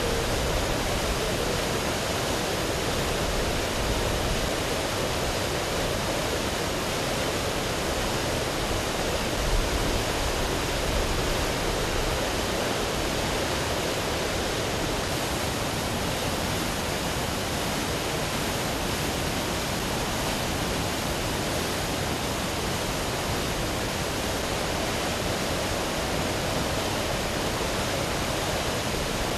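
Water rushing in a steady, unbroken noise, typical of floodwater or a torrent after heavy rain.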